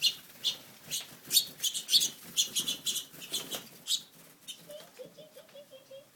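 Finches loose in a room, wings fluttering as they fly about, with many short, high chirps several times a second.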